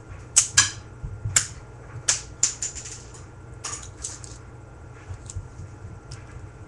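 Sharp plastic clicks and clacks of a home-made K'NEX rubber-band gun being fired: a quick cluster in the first three seconds, then a few lighter clicks later.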